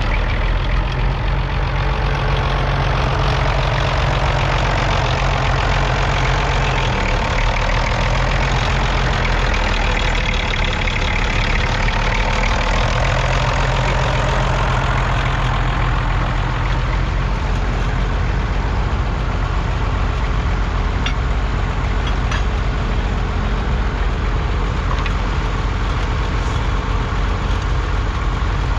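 Fordson Major tractor's 4.7-litre six-cylinder Perkins P6 diesel engine running steadily at an even speed, with no revving.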